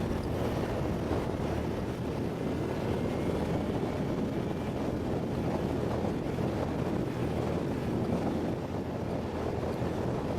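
ATV engine running at a steady pitch, with wind noise on the microphone.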